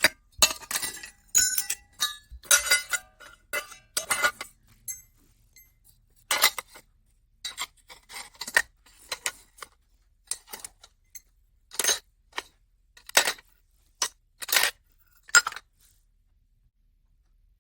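Metal parts of a folding mini camp stove clinking and scraping against each other as it is rearranged into its bonfire configuration. A busy run of clinks comes first, then single sharp clanks about a second apart, stopping a couple of seconds before the end.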